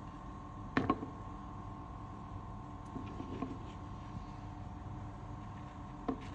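Two quick clicks about a second in and one more near the end, from the plastic housing parts of a car window regulator motor being handled and fitted together, over a steady hum.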